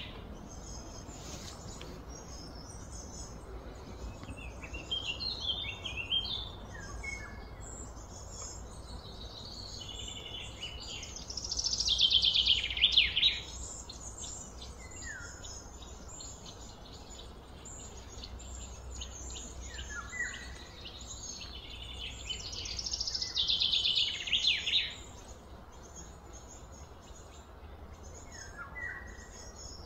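Birds singing and calling: a loud, rapid trill that falls in pitch over about a second and a half comes twice, once before the middle and again past two-thirds of the way through, among scattered short chirps over a steady low rumble.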